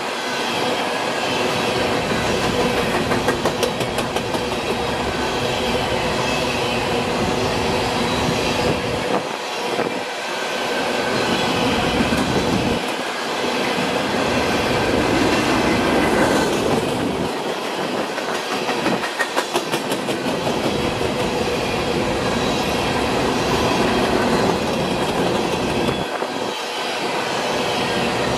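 Empty coal hopper cars rolling past, their steel wheels rumbling steadily on the rail, with runs of rhythmic clicking as the wheels cross rail joints.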